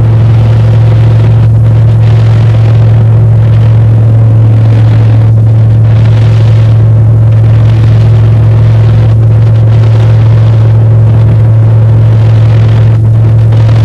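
Aircraft engine running steadily, heard from inside the cabin: a loud, constant low drone with a hiss of air noise above it that swells and fades every couple of seconds.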